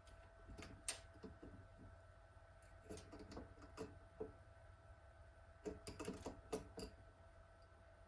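Faint light clicks and taps of small hand tools against small metal parts, in three short clusters, while a nut on an RC car's throttle linkage is being tightened.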